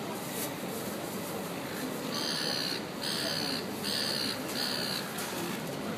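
A crow cawing four times in a row, evenly spaced, over steady background noise.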